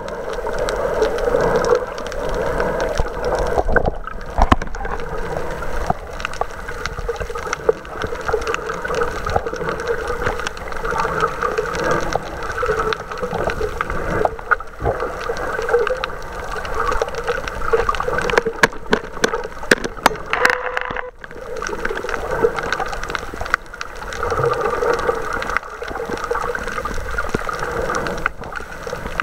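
Muffled underwater water noise picked up by a camera held under the surface: steady gurgling and sloshing, with scattered clicks and a cluster of them about two-thirds of the way through.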